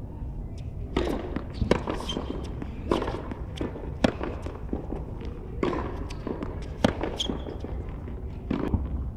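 A tennis rally: rackets striking the ball back and forth, about seven sharp pops roughly one every second or so, with ball bounces in between.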